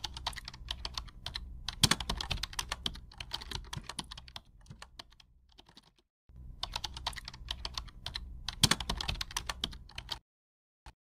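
Keyboard typing sound effect: rapid key clicks in two runs, the first tapering off after about five seconds, then a short pause and a second run of about four seconds, with one last click near the end.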